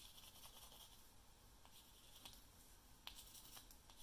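Faint rubbing of half a wooden clothespin burnishing self-adhesive copper foil onto the edges of a stained-glass piece, with a few light clicks.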